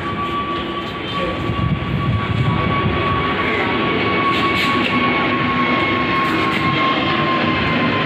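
Jet airliner flying over: a steady rush of engine noise that grows louder about two seconds in, with a high whine that slowly falls in pitch.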